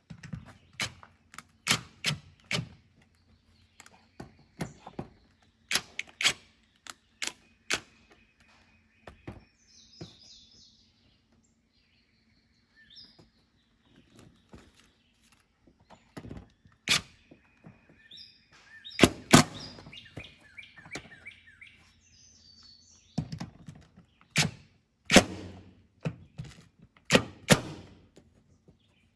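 Irregular sharp knocks and clicks of hardware as a light fixture is fitted against ribbed metal barn siding, with the loudest strikes in the second half. Birds chirp briefly now and then between them.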